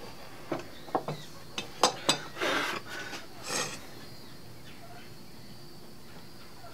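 Sharp metal clicks and clinks as a cordless drill is handled and a 1/8 in drill bit fitted. Two short rasping bursts come about two and a half and three and a half seconds in, as the drill's keyless chuck is twisted tight.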